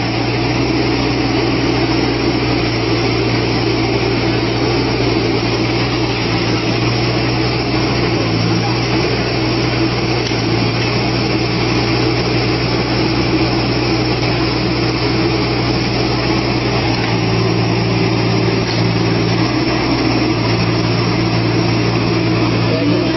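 Engine of a heavy machine running steadily, with a low hum that holds its pitch and only small shifts.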